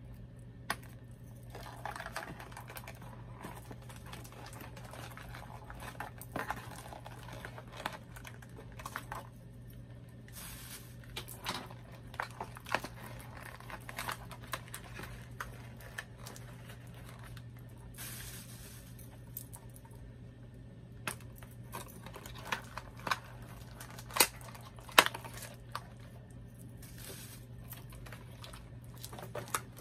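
Hands working open a cardboard doll box and its packaging: rustling, crinkling and tearing, with scattered sharp clicks and a few louder snaps in the latter part. A steady low hum runs underneath.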